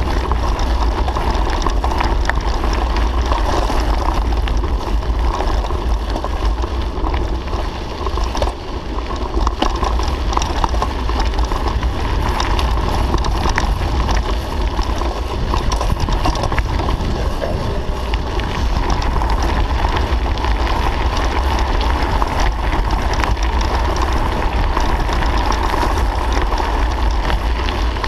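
Wind buffeting the microphone of a camera on a moving bicycle, a heavy steady rumble, with the tyres crunching and the bike rattling on a gravel road in many small ticks.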